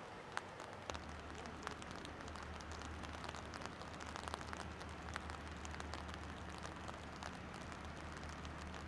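Rain falling, a faint patter of raindrop ticks hitting a surface. A low steady hum comes in about a second in and holds.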